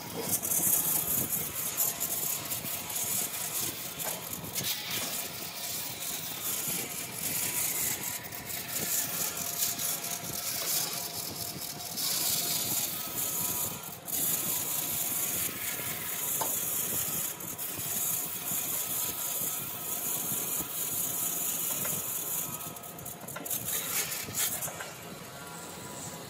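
A woodworking power tool running and cutting wood: a steady, high-pitched hiss over a faint whine, which dips briefly about fourteen seconds in and changes near the end.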